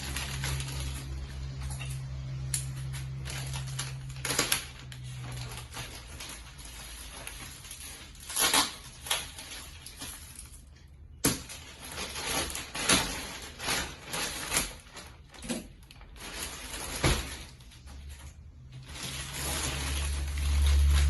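Scattered knocks, clicks and rustling from parts and padded floor mats being handled and set down, over a low steady hum that fades after about five seconds and comes back louder near the end.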